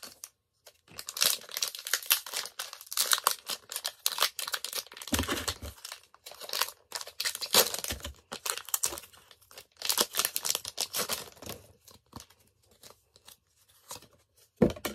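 Foil wrapper of a Pokémon booster pack being torn open and crinkled by hand, in several spells of crackling over about ten seconds. It goes quieter after that, and there is a brief thump near the end.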